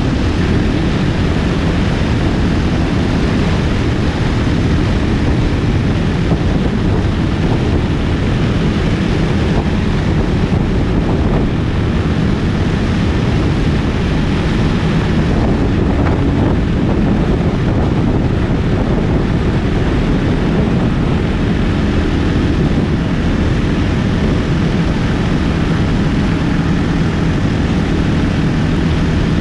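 Motorcycle engine running steadily at a constant pace, mixed with wind rushing over the microphone.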